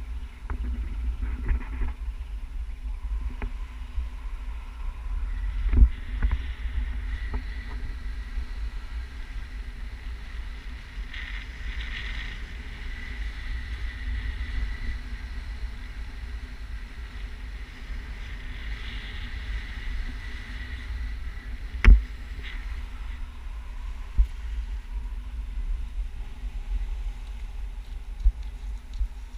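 Wind buffeting the action camera's microphone during a tandem paraglider flight: a steady low rumble, with a faint steady high tone through the middle and a few sharp knocks on the camera, the loudest about two-thirds of the way in.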